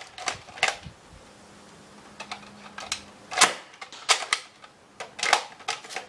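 Plastic clicks and clacks from a Nerf Elite Alpha Trooper blaster, a handful of sharp single clicks spaced irregularly with pauses between them. The loudest comes about midway.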